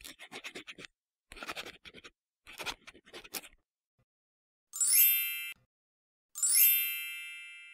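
Scribbling sound effect, like a felt-tip marker scratched quickly across paper, in four short runs over the first three and a half seconds. Then two bright, shimmering chime effects about a second and a half apart, each sweeping upward and ringing out.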